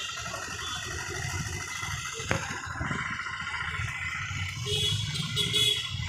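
Mahindra Bolero Pik-Up's engine idling steadily, with a single sharp click about two seconds in.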